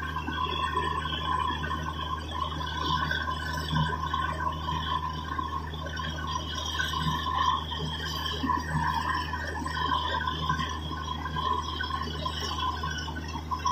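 Borewell drilling rig running steadily with a constant low hum, while water and rock slurry gush and splash out of the bore around the turning drill pipe: the bore has struck water.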